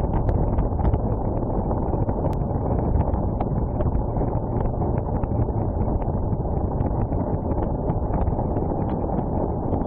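Steady wind noise on the microphone over a Honda CBF600 motorcycle being ridden slowly on a road of fresh loose chippings.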